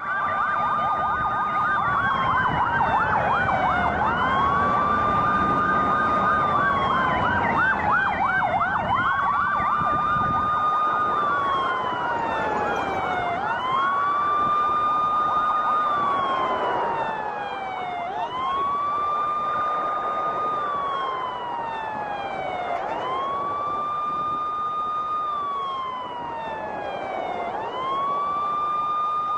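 Vehicle sirens sounding on a street: one wails, rising quickly, holding and sliding down about every five seconds. For roughly the first ten seconds a second, fast-warbling siren and traffic noise run under it.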